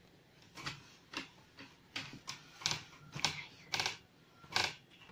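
A towel rubbed over the rind of a freshly washed squash to dry it: short rubbing swishes, about two a second.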